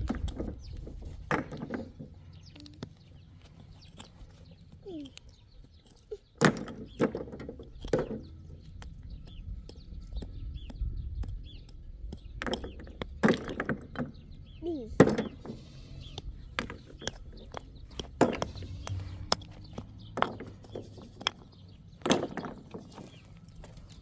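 Irregular knocks, clicks and scrapes of stone on stone and in dry, stony soil as someone digs by hand with a flat stone, a few of the knocks sharp and loud.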